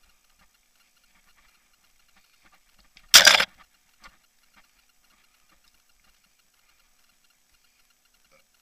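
Mountain bike ride heard from the bike-mounted camera: faint fast ticking throughout, then about three seconds in one loud, short rattling knock on the camera, followed by a few lighter knocks.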